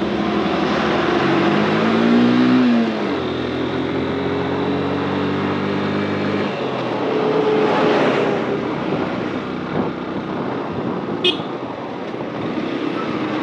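Motorcycle ride with engine noise and wind rush. For the first six seconds or so, engine tones rise and fall once in pitch as the bike passes a truck. After that, steady wind and road noise takes over, with a brief high-pitched squeak about eleven seconds in.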